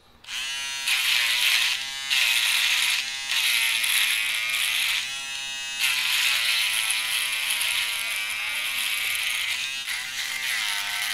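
Taurus mini portable electric foil shaver switched on and buzzing as it is worked over chin stubble. Its buzz dips in pitch and loudness several times along the way.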